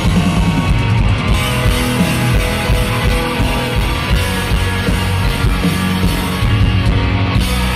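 Live rock band playing loudly: electric guitar lead over drums and bass, as heard from the audience at a stadium concert.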